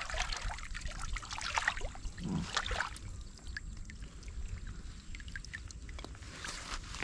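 Water splashing and pouring off a bamboo scoop basket as it is dipped and lifted through shallow lake water, draining through the weave, with splashes over the first few seconds, a quieter stretch, and another splash near the end.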